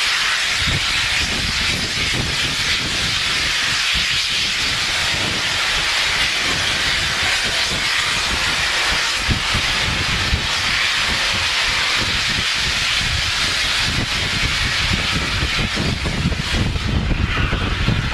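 Steam locomotive 71000 Duke of Gloucester, a three-cylinder BR Standard Class 8P, standing with steam blowing off: a loud, steady hiss.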